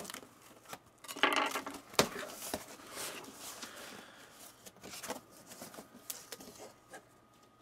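A tightly taped package being opened by hand: tape and cardboard tearing and packing material rustling, with scattered sharp clicks and knocks.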